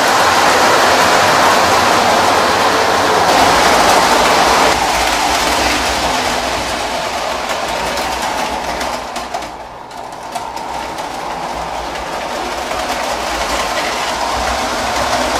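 Lionel postwar O-gauge model trains, including Alco F-A2 diesel units, running on three-rail tubular track with a steady running noise. The noise eases about two-thirds through, then builds again.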